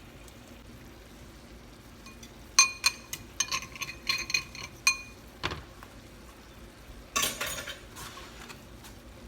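Metal utensils clinking and knocking against a roasting pan as a roast chicken is turned over, a quick run of ringing clinks about three seconds in, a single knock, then a brief scrape near the end.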